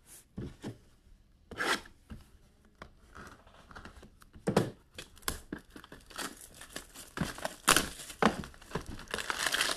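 The wrapping of a box of hockey trading cards being torn open and crinkled, in a string of short rips and rustles that come quicker and louder toward the end.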